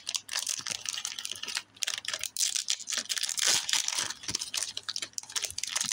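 Foil wrapper of a Korean Pokémon 151 booster pack crinkling and crackling as it is twisted and torn open by hand. It makes a rapid, irregular run of crackles, densest in the middle. The pack is stubborn and hard to open.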